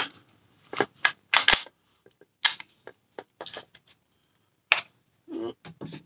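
KC-02 bolt-action CO2 air rifle being handled after its gas has run out and the bolt has locked back: a string of separate sharp clicks and clacks from its metal and plastic parts, the loudest about a second and a half in.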